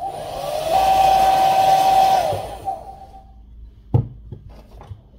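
Hairdryer blowing on the phone's glass back cover to heat it: a rushing hiss with a motor whine that rises to a steady pitch about a second in, then falls away and fades out by about three and a half seconds. A single sharp knock follows about four seconds in.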